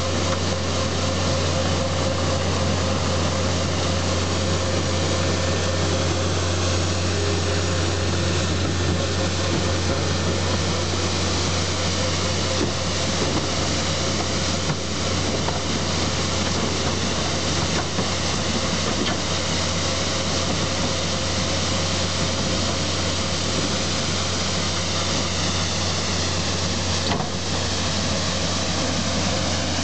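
Skid steer loader running steadily with a broom bucket attachment working: a constant low engine drone with a steady hum above it and a dense noisy rush over the top.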